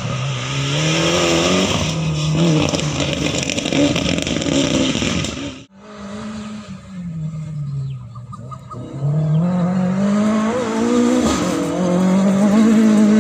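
Rally car engine revving hard through the gears, its pitch climbing and dropping again and again with each gearchange. The sound cuts off abruptly about halfway, then the engine note climbs again and is loudest near the end as the car passes.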